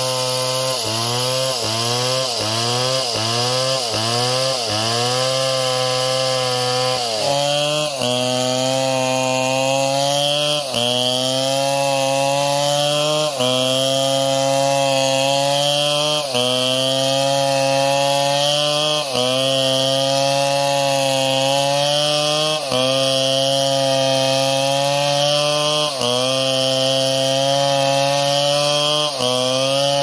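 Stihl chainsaw at high revs cutting into a large log, its engine pitch dipping under load and climbing back again and again: about once a second for the first several seconds, then every few seconds.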